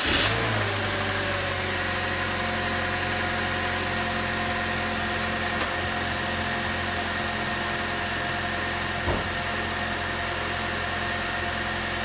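A 2004 Chevy Cavalier's 2.2 L Ecotec inline-four just after starting, its revs settling in the first second and then idling steadily. It runs evenly, the rough misfire cured by a new ignition control module.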